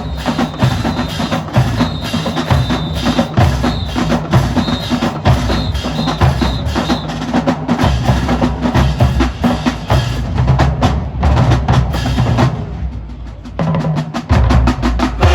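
Marching band playing a fast, percussion-heavy beat: rapid drum strikes over heavy bass drum hits. It drops back briefly near the end, then the full beat comes back in.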